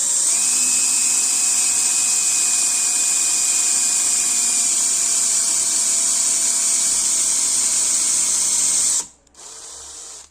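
Electric drill spinning up and running steadily for about nine seconds, its pitch dropping slightly partway through, then stopping; a short, quieter run follows near the end.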